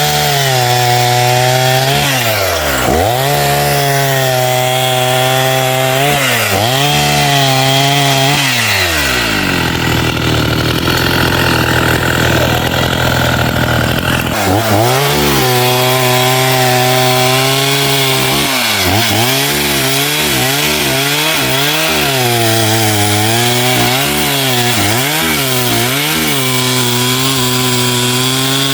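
Two-stroke chainsaw running and cutting wood, its engine speed dipping and climbing back again and again as the throttle is worked and the chain bites. About nine seconds in the engine speed falls low for some five seconds before it picks up again.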